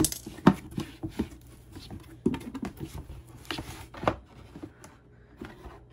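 Cardboard box being torn open and unpacked, its flaps rustling and scraping, with the black plastic shoe-rack panels inside knocking and sliding against each other in irregular clicks.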